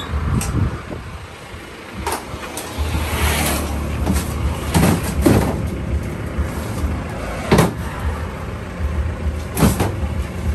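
Sharp knocks and clanks from a truck's metal cargo box, a handful spread a second or two apart, as its rear door is swung open and someone climbs in and steps about on the bed, over a steady low rumble.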